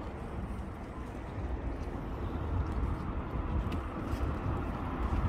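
Steady low rumble of distant city traffic, growing a little louder about halfway through.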